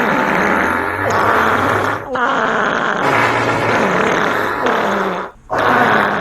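Fart sound effects: long, loud farts one after another, their pitch wavering up and down. There are short breaks about two seconds in and near the end.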